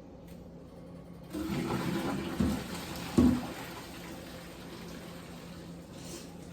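Boiled macaroni being drained with a strainer held over the pot: water pours out into the sink starting about a second in, with two knocks of the pot, then it settles into a softer, steady run of water.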